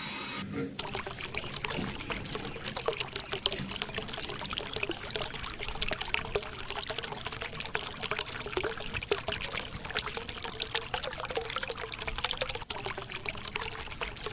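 A thin stream of water pouring from a small pipe and splashing into a foamy puddle on sand, starting about a second in: the outflow of a homemade mini submersible pump.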